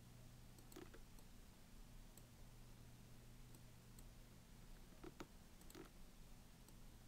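Near silence with a faint steady hum, broken by a few faint computer mouse clicks: one about a second in and a couple around five to six seconds in.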